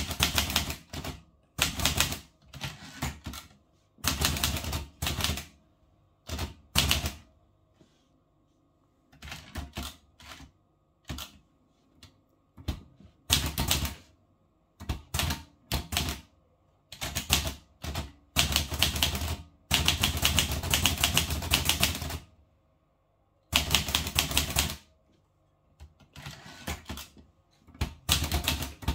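Olivetti Lettera 32 manual typewriter being typed on: keys striking in runs of clacks, broken by short pauses, with a longer unbroken run of typing a little past the middle.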